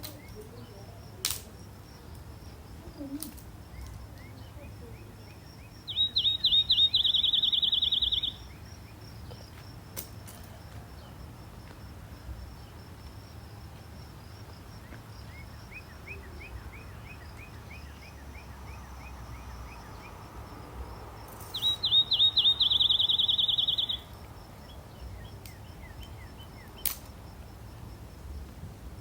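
A songbird singing twice, each time a run of quick notes that turns into a fast ringing trill lasting about two seconds. Fainter series of rapid chirps sound between the songs, over a steady faint high-pitched whine, with a few sharp clicks.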